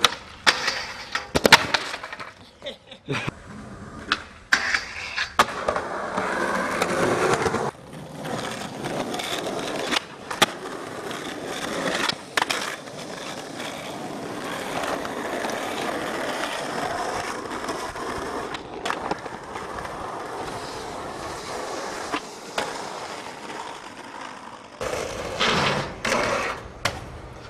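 Skateboard sound from street skating: urethane wheels rolling on concrete and asphalt, broken by sharp clacks as the board pops, hits and lands. The impacts come thick in the first few seconds and again near the end, with a long stretch of steady rolling between them.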